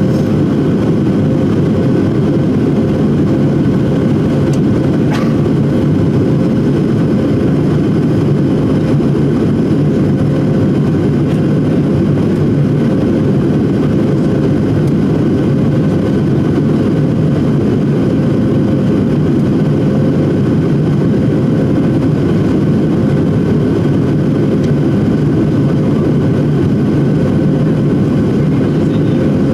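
Jet airliner cabin noise: a steady drone of the engines and rushing air with a faint, even-pitched hum, unchanging throughout. One faint click about five seconds in.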